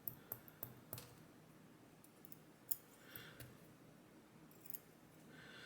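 A few faint, scattered clicks and small taps from handling the parts and tools of a disassembled lock cylinder, with near silence between them.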